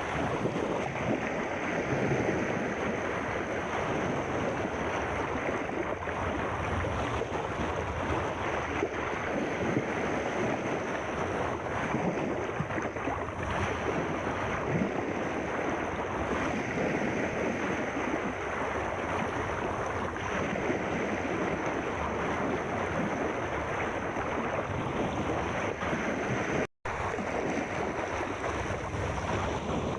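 Steady rushing water sound, even and unbroken, with no separate waves rising and falling; it cuts out for an instant near the end.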